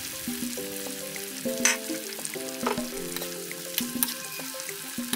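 Sliced potatoes and carrots sizzling in hot cooking oil in a wok, a steady frying hiss with a few sharp pops, over soft background music.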